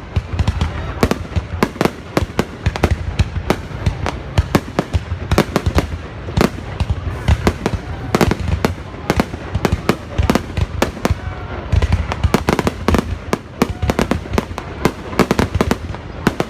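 Fireworks going off without a break: a dense, irregular run of sharp bangs and cracks, several a second, over a low rumble.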